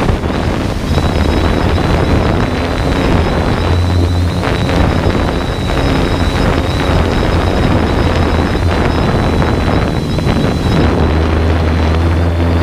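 Wind buffeting the microphone of the camera on a flying 3DR Solo quadcopter, over the steady hum of the drone's motors and propellers, with a thin, steady high whine.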